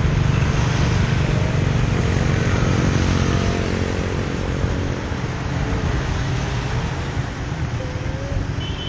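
Steady low rumble of road and wind noise from riding through city traffic, with the engines of motorbikes close by; one engine tone stands out for a few seconds in the middle.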